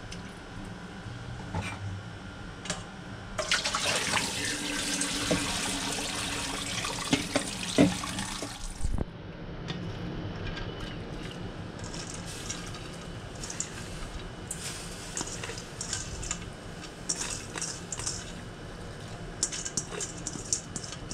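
Kitchen tap running into a stainless-steel sink over pickleweed being rinsed by hand in a colander, the water starting a few seconds in and stopping about halfway through. Afterwards, scattered soft clicks and rustling as the pickleweed is tipped from a metal colander into a saucepan.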